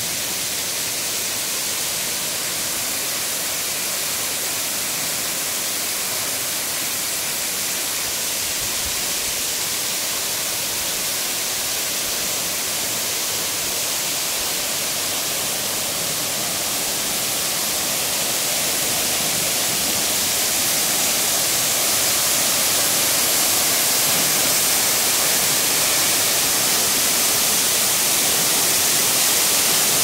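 Waterfall: a steady rushing hiss of falling water, growing louder over the second half.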